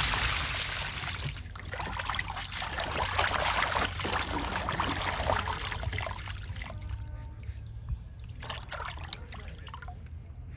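Water splashing and trickling in a plastic basin as raw chicken pieces are rubbed and lifted by hand while being washed; busiest in the first half, then quieter with scattered drips.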